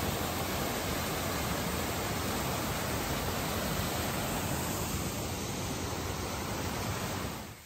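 Artificial waterfall cascading down stepped rock tiers: a steady, close rush of falling water that drops away suddenly near the end.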